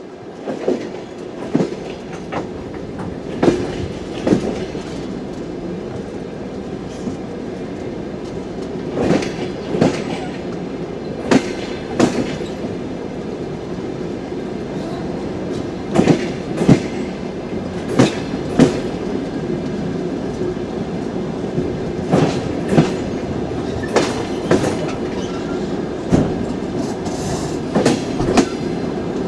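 Passenger train wheels clacking over rail joints as the train departs and gathers speed, over a steady rolling rumble. The knocks come mostly in pairs and come more often toward the end.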